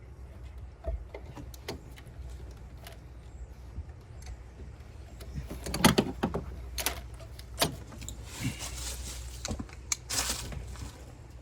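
Hand tools clinking and knocking against metal parts in a car's engine bay while a heater hose clamp is worked at. There is a loud knock about six seconds in, a few sharper clicks after it, and a short scrape near ten seconds.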